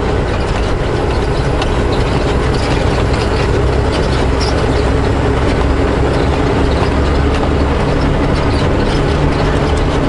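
Semi truck's diesel engine running steadily under way, heard from inside the cab along with road noise.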